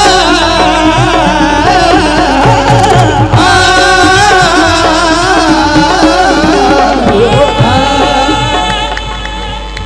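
Live Sufi devotional music: singers hold long, wavering vocal runs over steady accompanying tones and drum beats. It grows a little quieter near the end.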